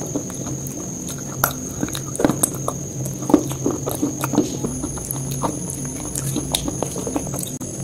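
Close-miked mouth chewing, with irregular sharp crackling clicks as the food is worked between the teeth, over a steady high whine and low hum.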